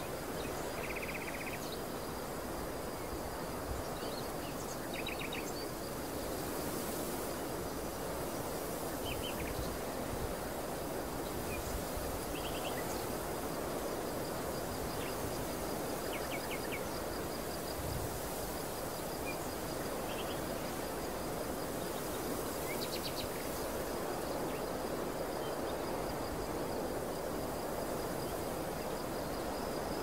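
Open-field ambience: a steady rushing background with a high, continuous insect trill and scattered short bird chirps every few seconds.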